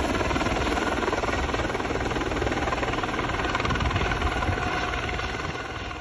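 Firefighting helicopter's rotor beating rapidly and steadily over its turbine noise, fading slowly in the last couple of seconds as it flies away.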